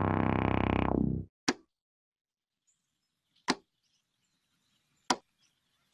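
A sustained low musical drone cuts off a little over a second in. It is followed by three single sharp knock-like hits, about two seconds apart, with silence between: edit transition sound effects.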